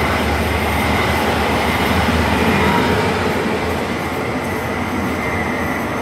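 Electric multiple unit commuter train passing close by at speed: a steady rush of wheel and rail noise that eases off a little about four seconds in as the last cars go by.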